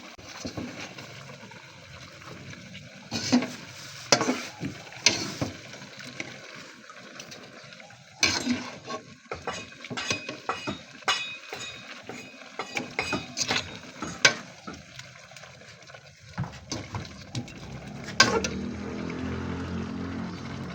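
Kitchen utensils clinking and knocking against pots and dishes in irregular sharp strokes. A steady low hum comes in near the end.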